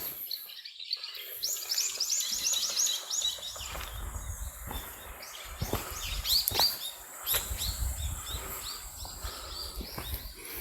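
Small songbirds chirping in quick runs of short high notes, with a low rumble underneath from about three seconds in.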